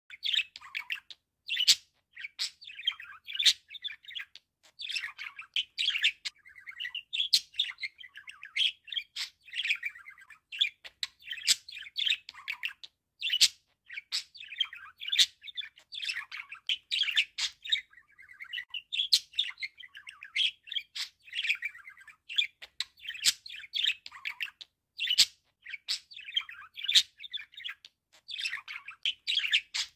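Budgerigar warbling: a fast, almost unbroken chatter of chirps, squeaks and clicks with a few short pauses.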